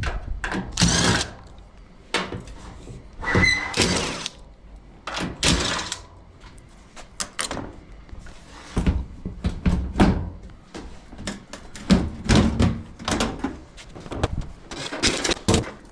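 Irregular clunks, knocks and rattles of a Whirlpool Duet dryer's sheet-metal cabinet and parts being handled while its door-switch connector is reconnected, with a brief high squeak about three seconds in.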